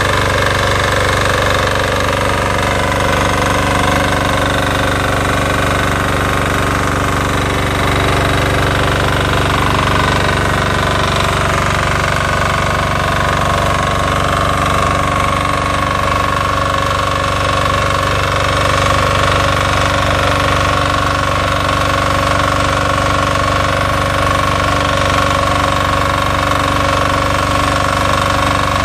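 Weima BSR 1100 BE 12 hp single-cylinder diesel walk-behind tiller running steadily under load while its rotary tines dig through dry soil. A steady whine comes up about ten seconds in.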